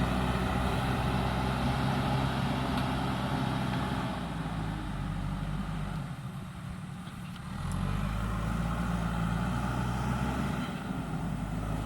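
JCB 3DX backhoe loader's diesel engine running steadily, easing off for about two seconds past the middle and then picking up again.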